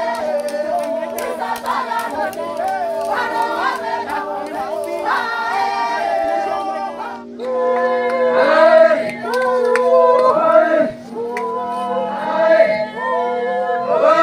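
A group of voices singing a chant together, getting louder about seven seconds in.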